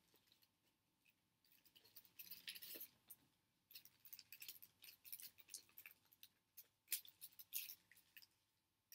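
Faint, scattered crinkling and small clicks of a chocolate bar wrapper as fingers pick and pull at it, slow to open.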